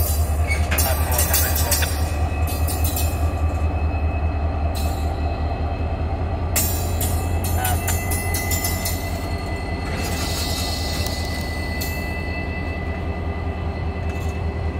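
EMD SD40-2 diesel-electric locomotive passing slowly at close range, its 16-cylinder 645 engine running with a steady low drone. Sharp metallic clicks from the wheels and running gear come in the first couple of seconds and again about seven seconds in, and a thin high tone joins about seven seconds in.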